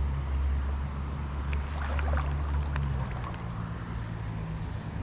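A low, steady motor hum that fades away about three seconds in, with a few faint clicks over it.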